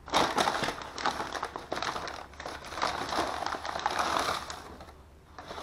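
Brown paper bags crinkling and rustling as they are handled, a dense crackly noise that fades out about a second before the end.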